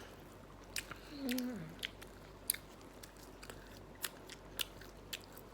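A person chewing food close to the microphone: wet mouth clicks and crunches scattered irregularly, with a short low hum falling in pitch about a second in.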